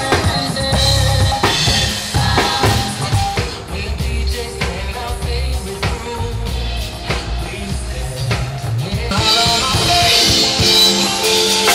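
Drum kit played live, with kick drum, snare and cymbals, over amplified music with a singing voice; the cymbals get brighter and louder near the end.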